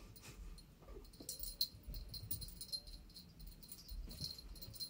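A cat's collar jingling faintly in short, scattered tinkles as the cat darts and pounces, with a few soft low knocks.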